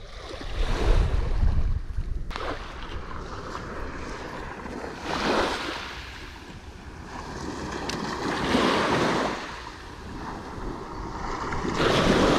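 Small waves breaking and washing up a sand-and-pebble beach close by, one wash swelling and fading every three to four seconds.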